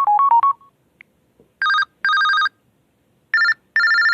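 Phone ringtones played through the LG Aristo 4+ smartphone's speaker. A quick run of electronic beeping notes ends about half a second in. Then a telephone-style ring sounds as two double rings, the second pair a little higher in pitch.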